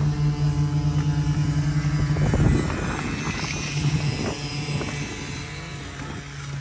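An engine running at a steady speed, a constant hum that softens in the second half. A brief rustle about two and a half seconds in.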